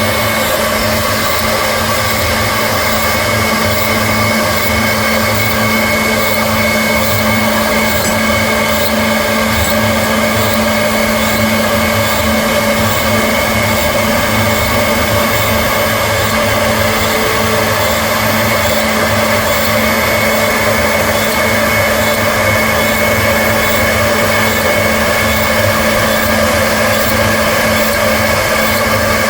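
CNC machine running steadily, its spindle motor giving several constant tones over a steady mechanical noise.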